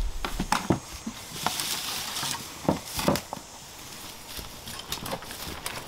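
Footsteps crunching on dry leaf litter and twigs, with irregular knocks and rattles from a wheelbarrow being pushed over rough, rooty forest ground.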